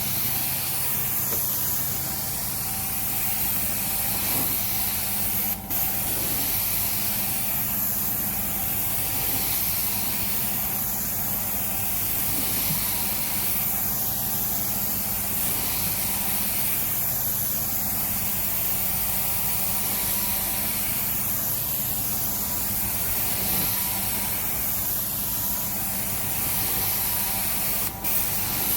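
Carpet-cleaning extraction wand spraying and sucking water through the carpet: a loud steady hiss that swells and dips about every three seconds with the wand's strokes, over the steady hum of the cleaning machine. The hiss breaks off briefly twice, about six seconds in and near the end.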